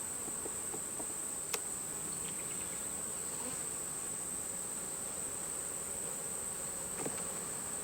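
Honeybees buzzing steadily around an open hive under a steady high-pitched insect whine, with one sharp click about one and a half seconds in.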